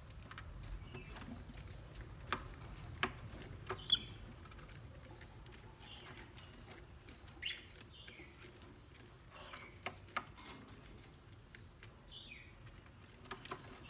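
Faint scattered clicks and taps with a few short, high chirps from a bird, over a low steady background hum.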